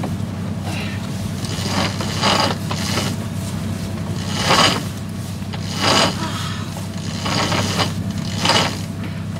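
Sailing yacht's genoa being unrolled from its furler: about six short ratcheting, scraping bursts of a sheet winch and lines running out under load, over a steady low drone.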